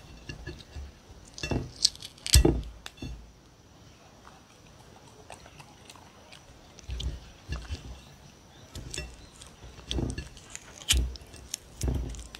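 A hand breaking up and pushing a piece of cucumber around a ceramic plate: scattered clinks, taps and dull thumps against the plate and table, the loudest about two seconds in.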